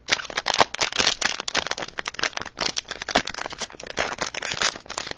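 Cellophane wrapper of a basketball card pack crinkling and crackling in the hands as it is torn open, a dense run of sharp crackles.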